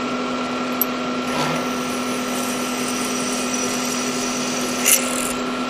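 Manual milling machine's spindle running steadily while a drill bit is fed down into a metal plate, drilling a hole. A sharp click about a second in and a short high burst about five seconds in.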